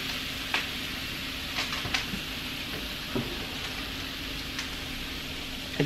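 Ground chuck with spices and tomato paste sizzling steadily in a stainless steel pot, with a few faint clicks.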